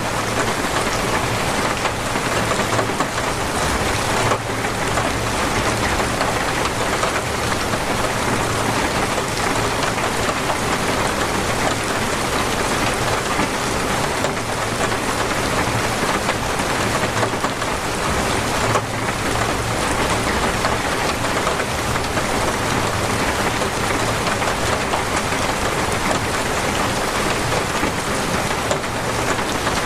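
Torrential rain pouring steadily, a dense even hiss with no letting up.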